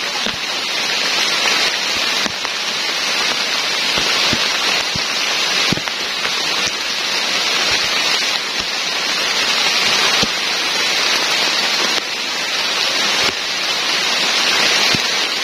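Heavy rain falling steadily, a dense even hiss with scattered sharper drop hits.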